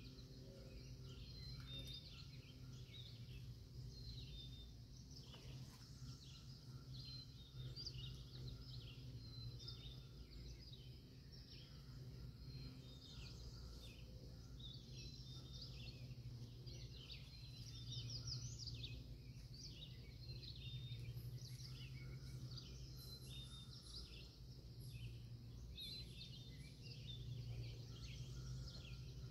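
Faint chorus of birds chirping, many short high calls overlapping throughout, over a steady low hum.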